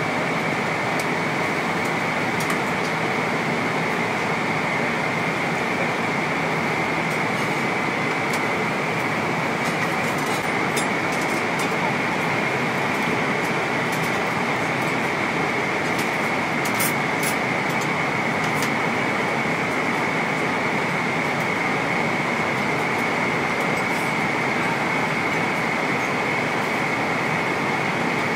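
Steady cabin noise of a Boeing 777-300ER airliner in flight: an even rush of air and engine noise that does not change, with a few faint light clicks around the middle.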